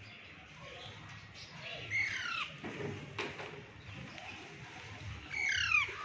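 Alexandrine parakeet calling twice, about three and a half seconds apart. Each call is a short screech that falls steeply in pitch.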